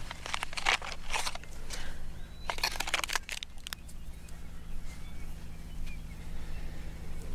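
Handling noise: rustling and crackling of fingers working a small plastic pipette over a fleece cloth, in two short bursts near the start and about three seconds in, over a steady low hum.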